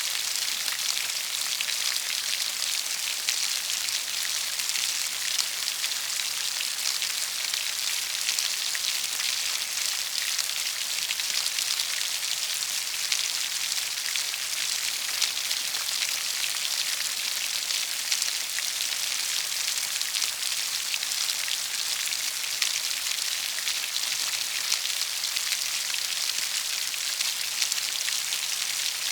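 Rain falling steadily: an even, high hiss with a fine patter of individual drops through it and little low rumble.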